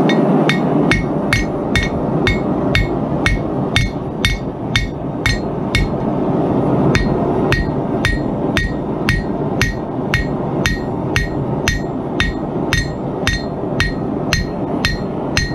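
Hammer blows on a red-hot layered mokume gane billet on the anvil, a steady run of about two strikes a second, each with a short metallic ring: the stack being forge-welded together at welding heat. A steady roar of the forge runs underneath.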